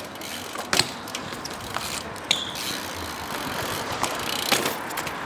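BMX bike rolling on a brick bank, its rear hub's freewheel clicking as it coasts, with a few sharp knocks from the wheels striking the bricks.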